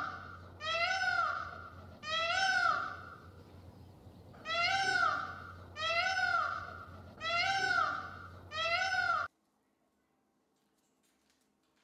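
An animal calling over and over: short, high, rising-then-falling cries about a second apart, with one longer pause between them. The calls cut off abruptly about three-quarters of the way through.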